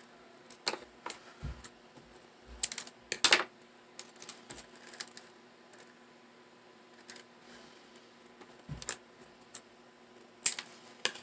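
A plastic pearl bead strand being handled and cut to length with scissors: irregular light clicks and rattles in short clusters, the loudest about three seconds in.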